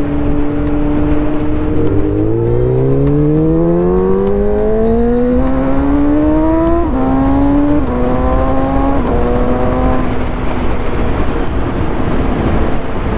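Suzuki GSX-S750 inline-four with a decat exhaust running steadily, then accelerating hard with the engine note rising for several seconds. It then makes several quick upshifts about a second apart, each a sudden drop in pitch, with wind noise on the microphone throughout.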